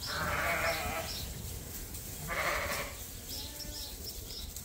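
Sheep bleating: two hoarse bleats, one at the start and one about two and a half seconds in, with a fainter bleat shortly after.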